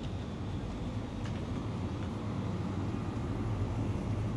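Airport terminal background noise: a steady low hum with a few faint clicks.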